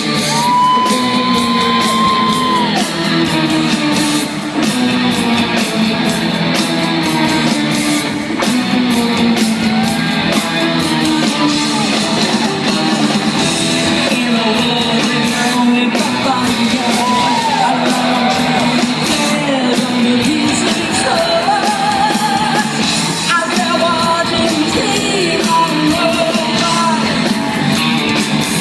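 Loud rock music with a singing voice and some shouting, heard through a concert hall's sound system and echoing in the large room.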